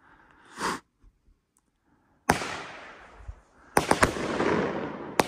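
'Last Call' consumer firework cake firing. A short hiss half a second in, then a sharp bang a little after two seconds that trails off slowly, and a cluster of sharp cracks near four seconds as a shell breaks in the air, with another crack near the end.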